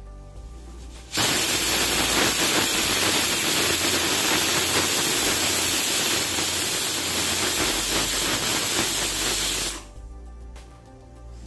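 Pressure cooker on a gas burner venting steam through its whistle weight: a loud, steady hiss that starts about a second in and stops suddenly near the end, the sign that the cooker has come up to pressure.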